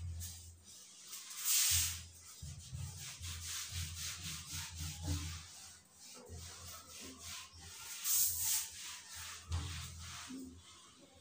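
Whiteboard eraser rubbing back and forth across a whiteboard, wiping it clean in quick repeated strokes, with two louder swipes about one and a half seconds in and about eight seconds in.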